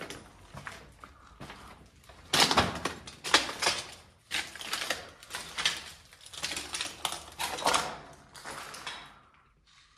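Footsteps crunching and scraping over a gritty, debris-strewn floor: a run of irregular crunches starting about two seconds in and dying away near the end.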